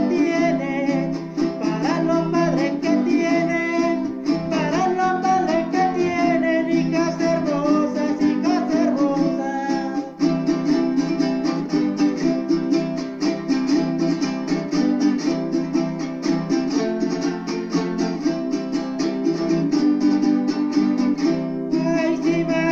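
A jarana jarocha strummed in a fast, steady son jarocho rhythm, with a man singing over it for roughly the first ten seconds. Then the strumming carries on alone until the singing comes back near the end.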